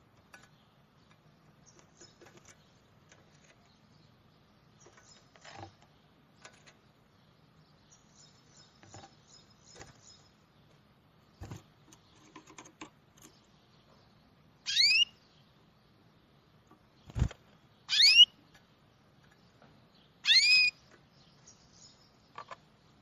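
Birds calling: faint scattered chips and a quick twittering run, then three loud, rising, whistled calls a few seconds apart in the second half. A single sharp knock falls between the first two loud calls.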